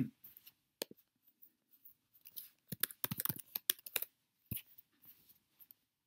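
Computer keyboard and mouse clicks: a few single clicks, then a quick run of key taps about three seconds in as a logon password is typed, and a few more taps near the end.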